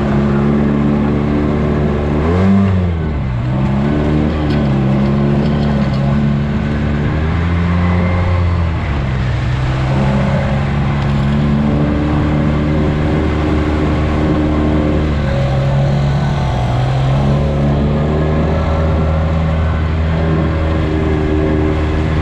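Side-by-side UTV engine running steadily under throttle. It revs up sharply and drops back about two and a half seconds in, and its pitch shifts up and down a few more times as the speed changes.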